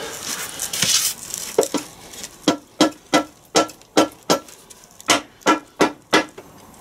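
A mallet strikes an R380 gearbox casing again and again, about a dozen sharp knocks with a short metallic ring at roughly three a second, to shock a tight, stuck extension housing loose from its joint. The knocks begin about a second and a half in, after a brief scraping rustle.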